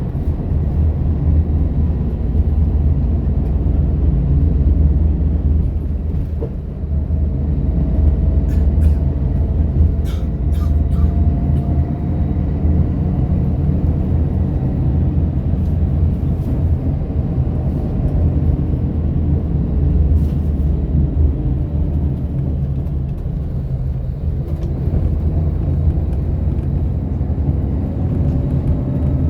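A bus heard from inside the cabin while under way. The engine and road noise give a steady low rumble, and a faint whine rises slowly as it accelerates about a quarter of the way in. A few light ticks or rattles come a third of the way through.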